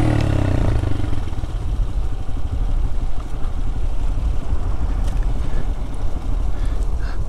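Honda Grom's 125 cc single-cylinder engine running through a Two Brothers Racing S1R carbon full-system exhaust with the baffle fitted, on the move. The engine pitch rises and falls in the first second or so, then holds steady under rushing wind noise.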